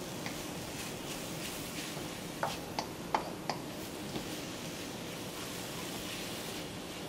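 Noodles and vegetables sizzling in a wok while being stirred with a wooden spoon, which knocks against the pan four times in quick succession midway through.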